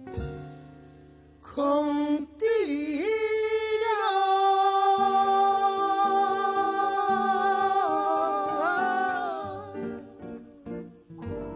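Male singing voice holding a long, wordless final note of a jazz ballad over piano and double bass. The voice comes in about a second and a half in, wavers, settles on one long held note, and glides off it just before the music stops near the end.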